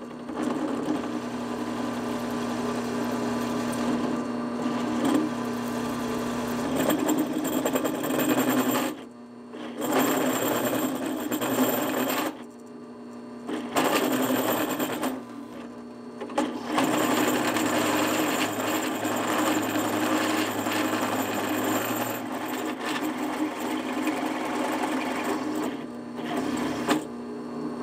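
Drill press driving a step bit through quarter-inch-wall steel tubing: a steady motor hum with the grinding noise of the cut over it. The cutting noise drops away briefly three times in the first half, when the bit is eased off the work.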